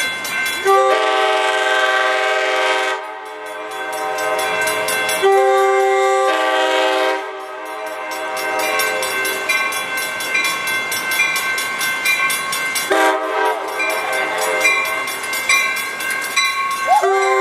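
Amtrak Pacific Surfliner train arriving with its cab-car horn sounding: a long blast about a second in, a second long blast about five seconds in, and more blasts from about thirteen seconds in, over the sound of the train rolling in.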